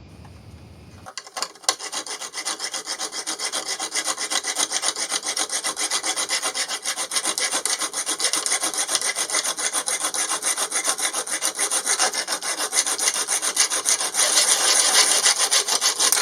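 Hand abrading strokes, sandpaper or a file worked back and forth, in fast, even scraping strokes, several a second. The strokes start about a second in and get a little louder near the end.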